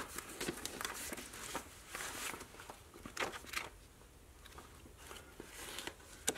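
Faint rustling of paper as a magazine's pages are handled, with a few light taps and clicks.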